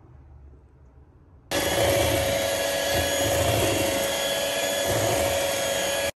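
Electric stand mixer running steadily at speed, its beater working eggs into creamed butter and sugar for a fruit-cake batter. It starts suddenly about a second and a half in and cuts off suddenly near the end.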